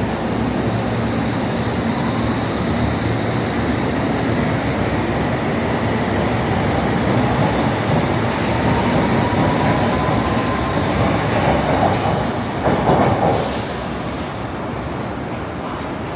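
London Underground train running with a steady rumble and a motor whine that rises slowly in pitch as it accelerates. A louder noisy burst comes about thirteen seconds in, after which the sound drops away.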